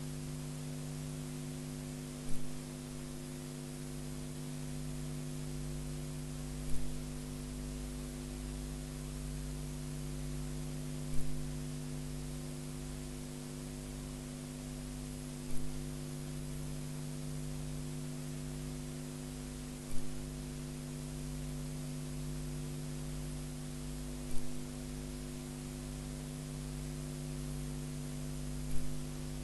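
Steady electrical mains hum with hiss, broken by a short click or thump about every four and a half seconds at a very even pace.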